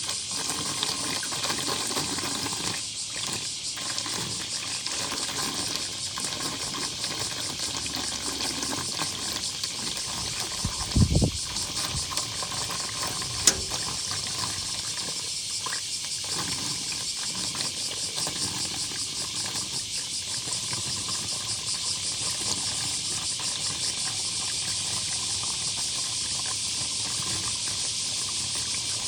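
Rainwater pooled on a flooded roof balcony draining away through the drain, a steady rushing hiss. A dull thump comes about eleven seconds in, and a sharp click a couple of seconds later.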